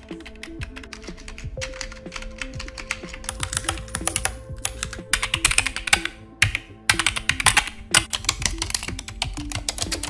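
AI-generated computer keyboard typing sound effects (ElevenLabs text-to-sound output for the prompt "keyboard sound effect"): fast, irregular key clicks, several short takes played one after another with brief breaks about five and six and a half seconds in. Soft background music plays underneath.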